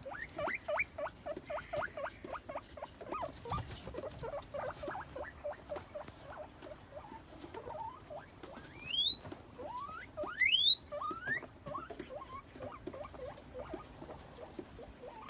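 Guinea pig squeaking in a quick, steady series of short rising notes, about four a second. About nine and ten and a half seconds in come two loud rising whistles, the guinea pig's wheek.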